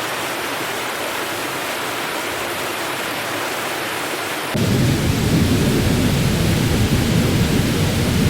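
Rushing floodwater: a steady, even noise that cuts abruptly about halfway through to a louder, deeper rush.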